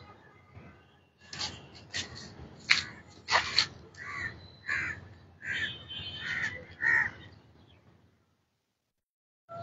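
A crow cawing in a run of about five short, harsh caws, roughly one every two-thirds of a second. A few sharper, louder cracks come in the first few seconds, before the caws.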